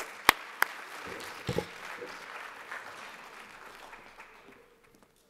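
Audience applauding. A few loud, close claps from one person near the microphone come in the first half second, and the applause fades out over about four seconds.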